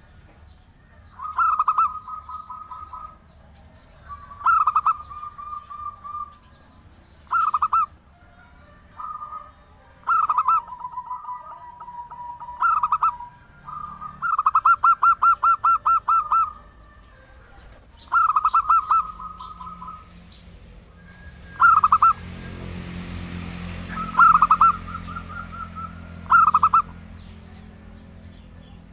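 Female zebra dove calling to males: about eleven short bouts of rapid, staccato cooing, with one longer quick-fire run about halfway through. A thin high-pitched tone runs steadily beneath.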